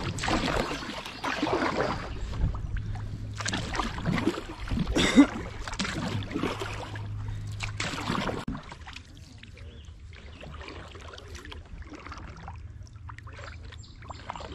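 Kayak paddle strokes dipping and splashing in the water in a steady rhythm, about one a second. The strokes stop about eight seconds in, leaving quieter water sounds as the kayak glides.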